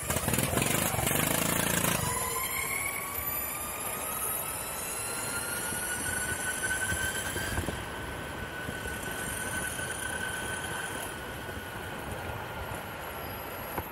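Electric skateboard's Boundmotor hub motors whining, the pitch rising over a few seconds as the board picks up speed and then easing down slowly, over the rumble of urethane-sleeved wheels rolling on asphalt. A loud rush of noise fills the first two seconds.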